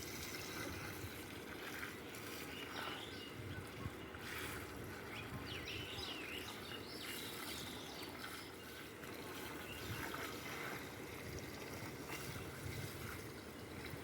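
Faint, steady watery trickling and bubbling from a pot of cattle feed cooking in water over a fire.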